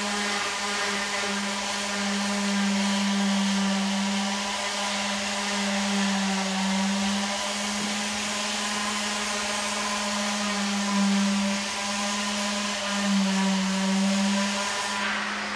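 A motor-driven machine running steadily: a constant hum with a hissing whir over it, the hiss dropping away just before the end.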